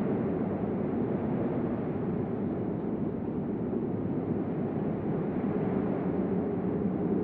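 Steady, deep storm wind rumbling without let-up, like a hurricane.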